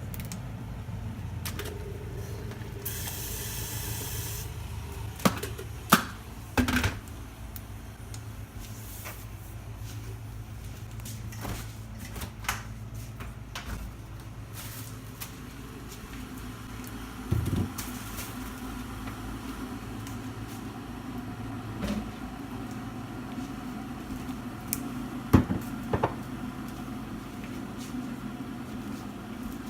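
Breakfast being made in a kitchen: a steady low hum, with a short hiss about three seconds in and scattered clicks and knocks, about eight in all, from cups, utensils or appliances being handled.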